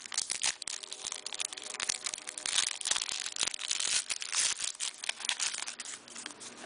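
Wrapper of an O-Pee-Chee hockey card pack being torn open and crinkled by hand, a dense run of irregular crackling rustles.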